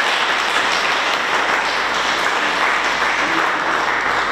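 A small congregation applauding, steady clapping from a few dozen people.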